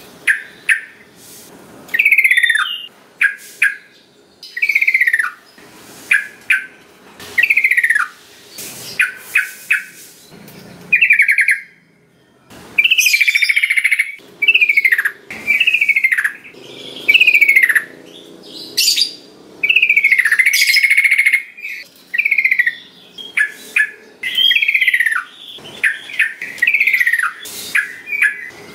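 Yellow-vented bulbul (trucukan) singing: short, bubbly, whistled phrases, many falling in pitch, repeated about every second or so with brief pauses between them.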